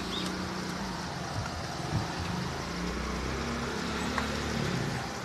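Steady low rumble and hum of background noise, with a few faint clicks.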